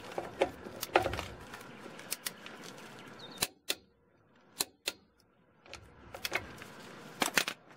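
Scattered sharp metal clicks and clanks from a socket, extension and click-type torque wrench being fitted and worked on a wheel lug nut. A quieter stretch in the middle holds only a few single clicks.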